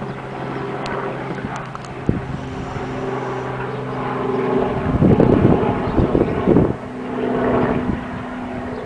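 An engine running steadily, a constant droning hum, with gusts of wind buffeting the microphone from about five to about seven seconds in.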